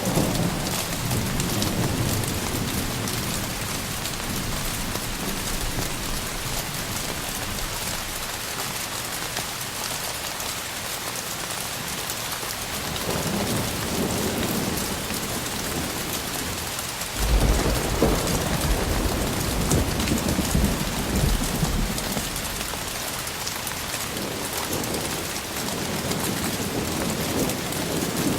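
Heavy rain falling steadily during a thunderstorm, with rolling thunder: a rumble near the start, another about halfway, the loudest breaking in suddenly about two-thirds through and rolling for several seconds, and a fainter one near the end.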